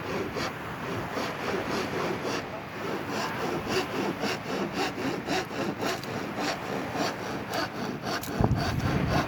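Handsaw cutting wood in steady back-and-forth strokes, about three a second. A brief low rumble comes near the end.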